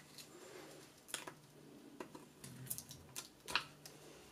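Faint scattered clicks and scrapes of a thin metal blade prying a freshly milled acrylic square out of its sheet, among loose acrylic chips. The loudest click comes about three and a half seconds in.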